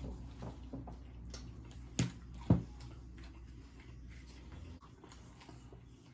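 Quiet eating and table-handling sounds: small clicks and taps, with two sharp knocks about two seconds in, half a second apart. A low steady hum stops near the end.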